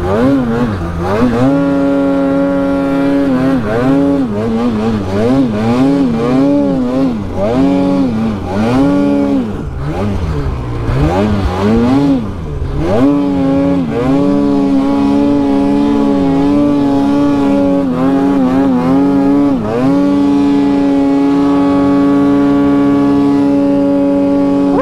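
Polaris 9R 850 two-stroke mountain snowmobile engine revved up and down again and again as the sled is worked loose and turned in deep snow. From about halfway it holds a steady high rev, with a short dip once, as the sled rides on.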